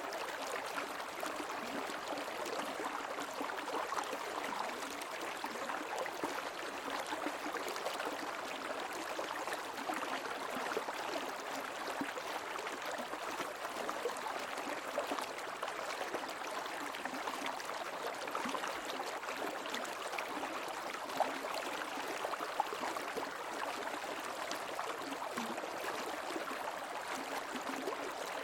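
Shallow stream flowing steadily, a continuous babbling rush of water with small gurgles and splashes.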